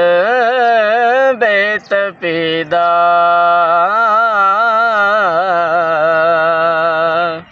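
A man's solo voice singing an Urdu naat without accompaniment, in long held notes with wavering, bending ornaments. There are a few short breaks for breath between phrases about one and a half to two and a half seconds in.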